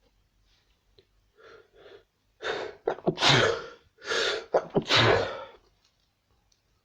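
A person sneezing: a few short catching breaths, then two loud sneezes in quick succession, about three and five seconds in.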